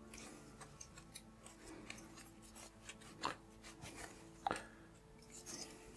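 Faint rubbing of a damp cloth over the rubber edge and plastic housing of a robot vacuum, with a couple of light knocks from handling in the second half.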